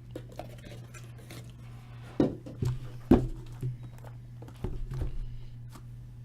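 Sealed cardboard hobby boxes of trading cards being lifted out of a just-opened case and set down on a table, a few sharp knocks, the loudest about three seconds in, over a steady low hum.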